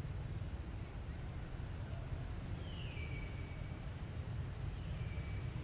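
A steady low rumble, with two short whistled calls that each fall in pitch, the second about two seconds after the first.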